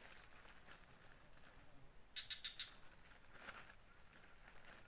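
Steady high-pitched insect drone from the surrounding woodland, with a quick run of four short chirps about two seconds in.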